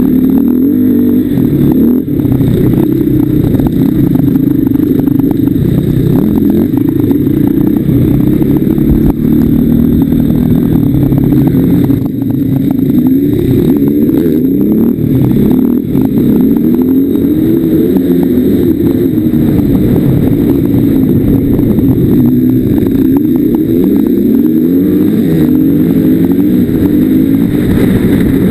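KTM off-road motorcycle engine running hard, its note rising and falling again and again as the throttle is opened and rolled off through the gears. There are brief dips where the throttle is chopped, about two, twelve and sixteen seconds in.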